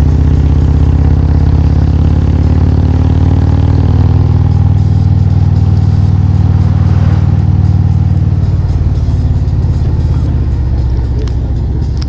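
Loud, steady low rumble from a car, holding an even pitch and easing off slightly near the end.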